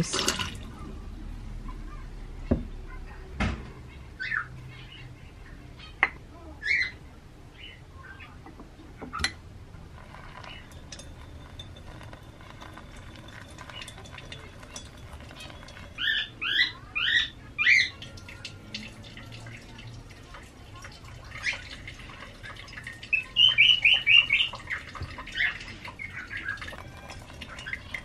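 Hot water from a kettle trickling steadily onto ground coffee in a cloth coffee strainer, faint under everything else. Over it a bird chirps: a few single notes at first, a quick run of rising and falling chirps just past halfway, and a rapid trill of notes near the end. The chirps are the loudest sounds.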